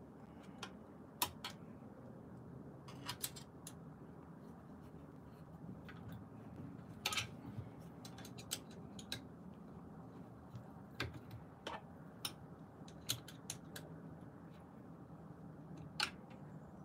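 Irregular light metallic clicks and clinks of hand tools and screws being worked at the pedal mount of a Veteran Lynx electric unicycle, about a dozen spread out over a faint low steady hum.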